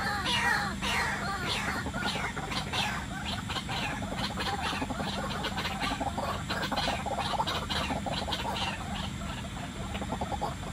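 White-breasted waterhens calling: a rapid run of short clucking calls, each a quick falling note, over a steady low hum.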